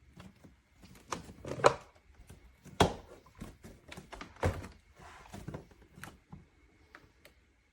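Hard plastic knocks and clunks of a Tineco iFLOOR 3 Breeze cordless wet-dry vacuum being lifted and set back down in its charging base, a dozen or so irregular thunks. The lift-and-replace is meant to trigger the base's self-cleaning cycle, which does not start.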